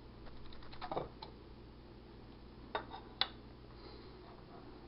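Light handling noises: a quick run of faint ticks and a soft knock about a second in, then two sharp clicks near the middle, over a faint steady hum.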